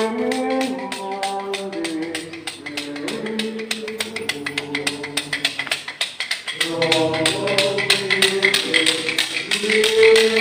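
Voices singing a slow hymn in long held notes, breaking briefly about six seconds in and then going on. A fast, even clicking runs under the singing.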